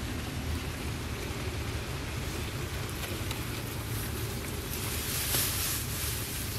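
Wind buffeting the microphone, a steady rumbling outdoor noise, with a brighter rustling swell about five seconds in.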